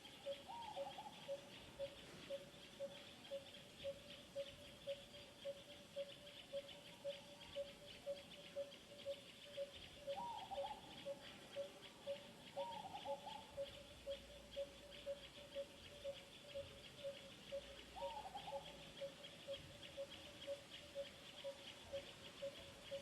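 Outdoor animal ambience. A single short note repeats evenly about twice a second over a dense, high insect-like buzz, and a few short falling calls come four times.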